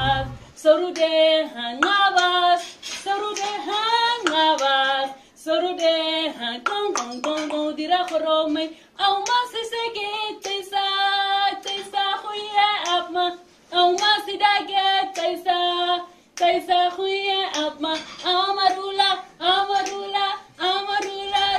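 A woman singing unaccompanied, with sharp hand claps keeping time.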